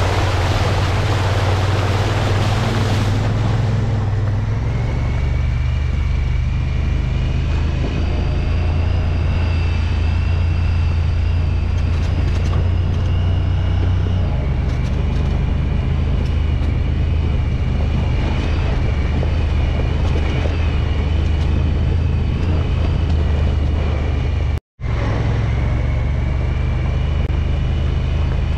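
Side-by-side UTV's engine running with a steady low drone while driving along a dirt track, a thin high whine over it. A rushing noise in the first three seconds; the sound cuts out for an instant near the end.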